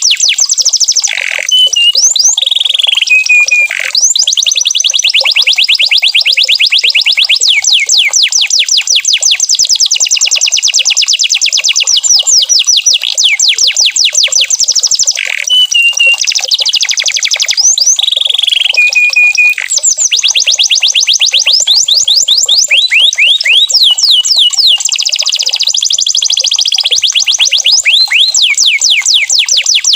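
Domestic canary singing: long, rapid trills of quick down-sweeping notes, broken now and then by short held whistles.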